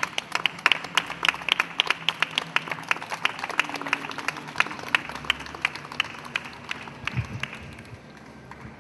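A small group clapping: quick, uneven claps that thin out and die away about eight seconds in.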